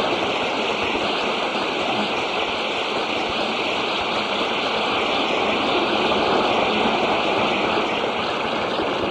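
Steady rushing hiss with no pitch and no words, even in level, cutting off abruptly at the very end.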